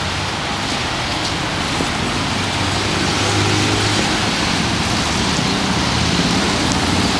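Steady street noise of road traffic with a rushing hiss over it, growing slightly louder about two and a half seconds in.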